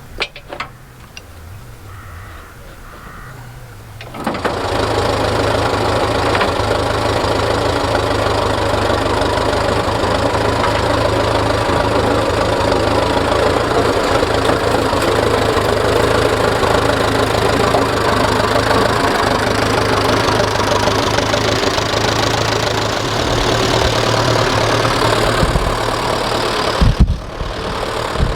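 A tractor engine starting up about four seconds in, then running steadily at idle with a low hum. Near the end the sound briefly drops away, with a couple of knocks.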